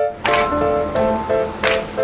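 Background music: short chiming notes repeated in a steady rhythm, with light percussive hits.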